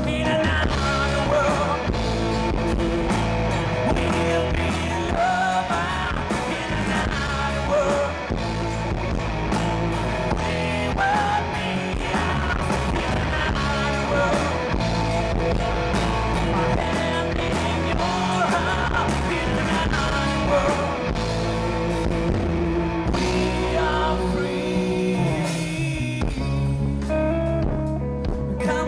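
Rock band playing live: a male singer singing over electric guitar and bass guitar.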